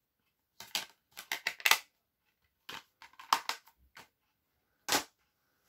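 Plastic movie disc case being handled: a run of small clicks and rattles in two bursts, then one sharper snap about five seconds in.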